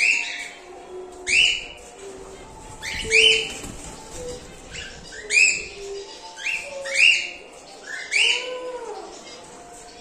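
Cockatiels giving loud, shrill contact calls over and over, about one a second, each a short whistle that rises and then falls.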